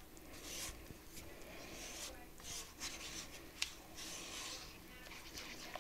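Faint scraping and rubbing strokes of a utensil stirring cocoa powder into melted butter in a large saucepan, at an uneven pace.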